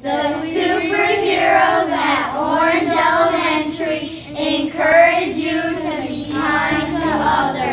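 A group of children singing a song together in unison, a continuous sung melody with held notes.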